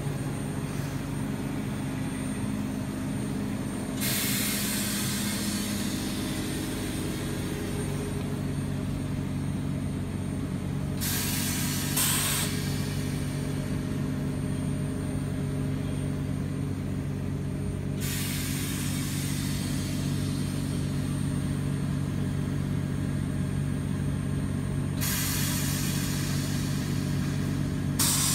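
Oxygen-fed ozone generator equipment running with a steady low mechanical hum. A hiss of gas starts about every seven seconds and fades over a few seconds each time.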